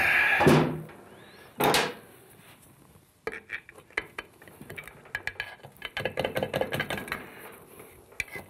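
A knock on the transmission's rear adapter housing a little under two seconds in, then a long run of light metallic clicks and scraping as a pry tool works at the silicone-sealed joint between the 68RFE transmission case and the adapter housing, breaking it loose.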